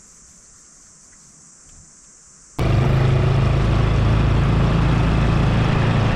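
A faint, steady high-pitched insect drone, then about two and a half seconds in an engine cuts in abruptly and loud, running at a steady speed with a low hum under a rushing noise.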